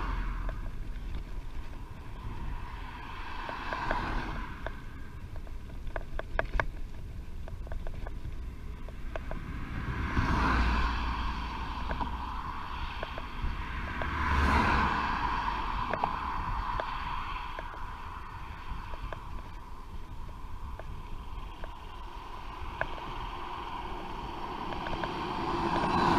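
Wind noise on a bicycle-mounted camera's microphone while riding, rising and falling in several swells, with a short run of quick ticks about six seconds in.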